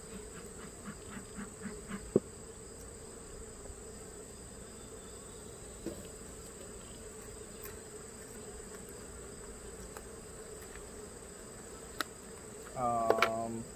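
Honey bees buzzing steadily around an opened Langstroth hive, with a few light knocks. A brief, louder pitched sound comes near the end.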